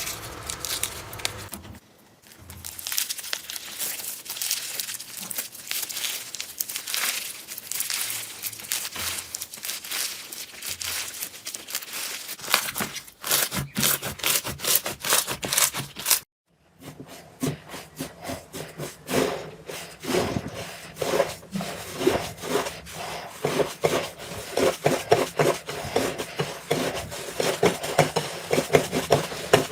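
Slime being squeezed, pressed and stretched by hand, making dense crackling clicks and wet squelching pops. The sound shifts at two short breaks, and in the last part turns into quick, regular pops.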